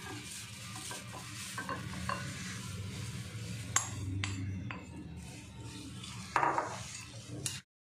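Steel spoon stirring and scraping poha (flattened rice) in a glass bowl, with a few sharp clinks of spoon on glass. Water is poured in partway through and the poha is stirred to wash it. The sound cuts off suddenly near the end.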